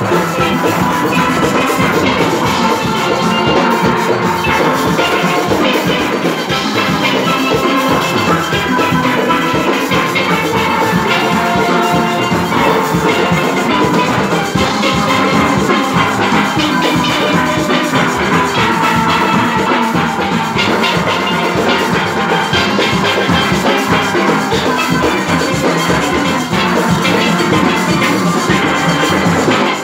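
Steel band playing: many steel pans struck together in a continuous arrangement, with drum percussion keeping the beat underneath.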